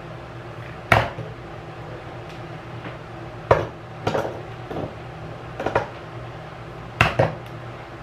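Hard objects being handled and set down on a hard surface: about seven separate sharp knocks and clatters, two close together near the end, over a steady low hum.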